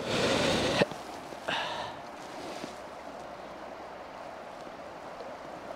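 River water flowing steadily. A short rush of noise ending in a sharp knock comes at the start, and a second brief rush about a second and a half in.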